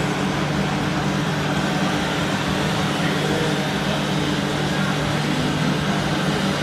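Steady, unchanging low engine-like drone from remote-controlled model trucks, with a hiss above it.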